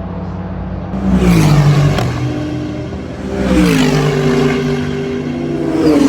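Race car engines going by trackside: a steady engine note, then about a second in a loud car passes with its engine pitch dropping and settling lower, a second does the same about three and a half seconds in, and a third arrives near the end.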